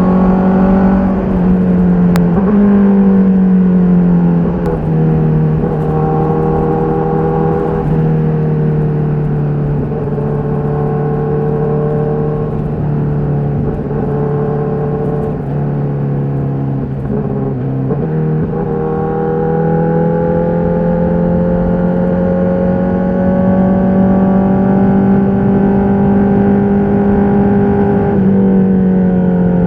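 Honda CBR1000RR-R SP's inline-four engine running through its stock exhaust, holding a steady engine speed. The pitch steps down a few seconds in, holds for a long stretch, rises again about two-thirds through with a slow climb, and drops slightly near the end.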